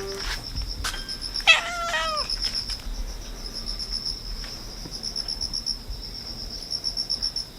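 An insect chirping steadily in a high, evenly pulsing trill, with a cat giving one short meow that falls in pitch about a second and a half in.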